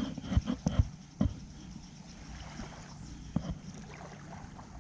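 Spinning rod and reel being worked on a retrieve, with sharp handling clicks and knocks, several in the first second and a half and one more a little past the middle.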